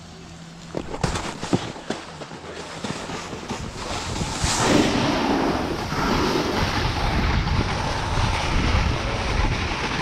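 Wind rushing over the camera microphone and a snowboard sliding and scraping on packed snow, growing as the rider gathers speed toward a jump. A few knocks come about a second in, and the rush is loud and steady from about halfway through.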